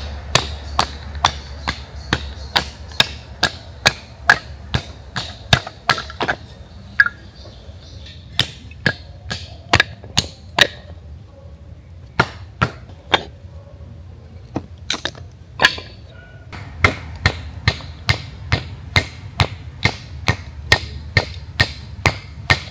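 Firewood being split with a knife instead of an axe: a long run of sharp knocks, about two a second, stopping briefly twice, as the blade is struck into and through the wood.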